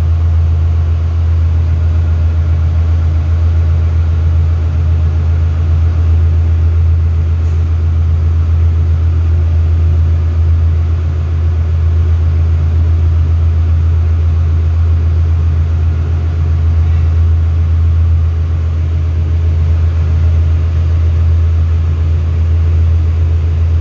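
Steady, loud low-pitched drone of ship engine-room machinery, unchanging throughout.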